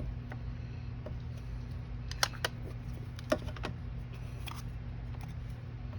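A few light clicks and taps from craft supplies such as ink pads being handled, about four in all, in two pairs around the middle, over a steady low electrical hum.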